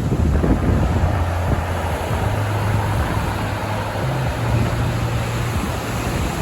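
Sailing yacht's engine running steadily, a low hum, with wind noise on the microphone.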